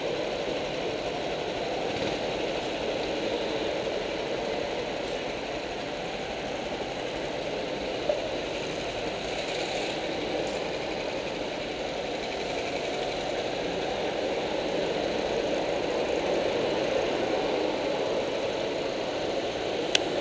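Go-kart engines running steadily at low revs, a continuous even drone with no clear changes in speed. A single sharp click near the end.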